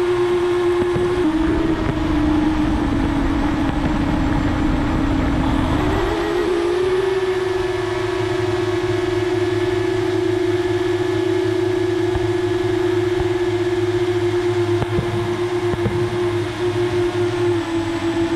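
FPV quadcopter's brushless motors and propellers whining in flight, a steady buzzing tone. The pitch sags for a few seconds, then climbs back and holds higher about six seconds in as the motor speed changes.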